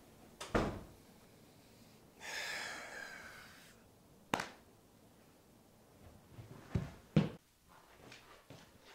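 Scattered thumps and knocks in a small room: a sharp knock about half a second in and another about halfway, with a longer breathy noise of about a second and a half between them, and two dull thuds close together near the end.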